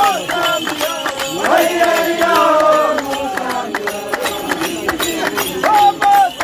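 Ngoni warrior dancers, a group of men, chanting and singing in chorus, with held, wavering notes and many sharp percussive beats cutting through.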